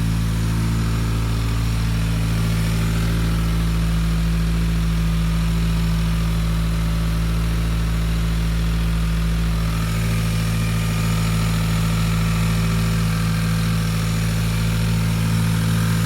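2017 Subaru WRX's turbocharged flat-four engine idling steadily while misfiring on cylinder 3. The idle note shifts slightly about ten seconds in.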